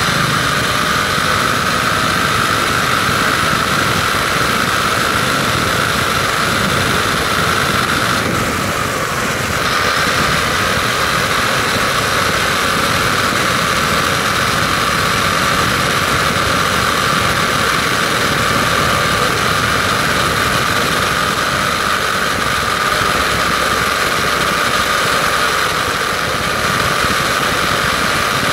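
WLToys 12428 RC truck's electric motor and geartrain whining steadily at speed, over the rough hiss of its tyres on asphalt. The whine drops and the sound softens briefly about a third of the way through as the car eases off, then picks up again.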